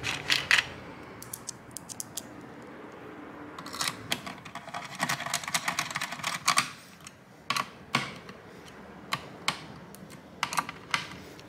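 Irregular small clicks and light metallic clinks of a screwdriver seating and turning the screws of CPU-cooler mounting brackets on a motherboard.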